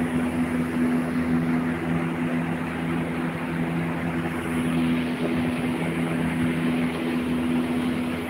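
Steady machine hum, one low unchanging tone with overtones, over a constant rushing noise.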